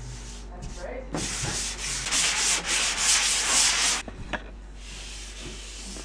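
Hands rubbing and scrubbing hard across a wall surface: a loud, scratchy scraping from about a second in until four seconds, then a short knock and a fainter rubbing.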